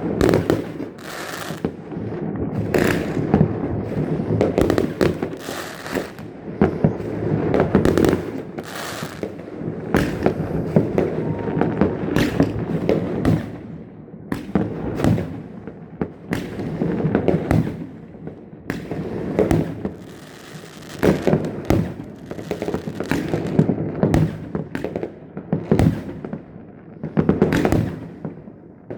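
Fireworks going off in a dense, irregular barrage: many sharp bangs and crackles overlapping, with a steady rumble of further bursts between them.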